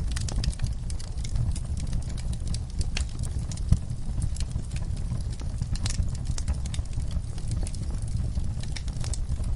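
Wood campfire crackling, with many small irregular pops and snaps and one sharper pop about four seconds in, over a steady low rumble.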